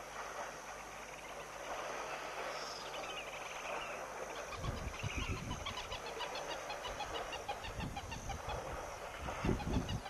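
Wild birds calling at a waterhole: a steady chorus, joined about a third of the way in by a fast run of short repeated high notes, several a second. Low rumbling surges come about halfway and again near the end.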